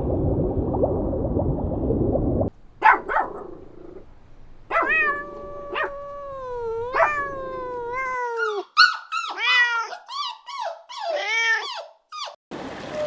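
Puppies vocalising. A rough, noisy stretch comes first, then a couple of sharp yips, then long drawn-out whines, then a run of short rising-and-falling whimpers.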